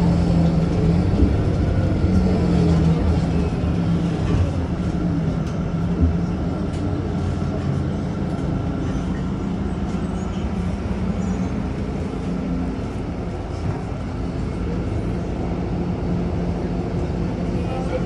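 Interior of a city bus in motion: a steady low rumble of engine and road noise, with a low hum that eases a little partway through.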